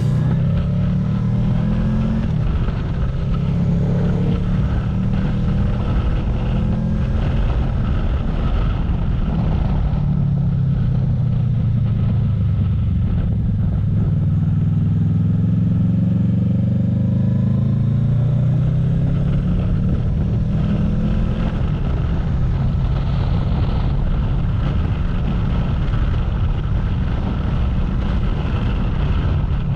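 Honda VFR800F's V4 engine running on the open road, its pitch rising and falling with throttle and gear changes, then steadier for the last few seconds, under heavy wind noise on the GoPro microphone, which had no foam wind cover.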